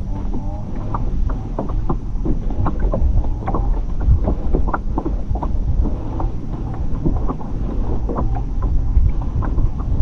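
Small boat under way: a steady low motor rumble with wind buffeting the microphone, and many short clicks and knocks throughout.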